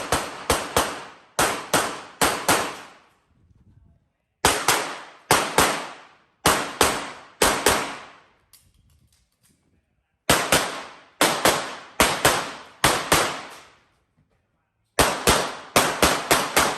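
Handgun shots fired rapidly, mostly in quick pairs, in four strings separated by pauses of about a second and a half, as a shooter runs an IPSC stage.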